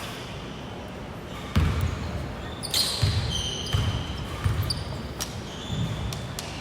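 A basketball being dribbled on a hardwood court, about five heavy bounces at uneven spacing, mixed with short high squeaks of sneakers on the floor.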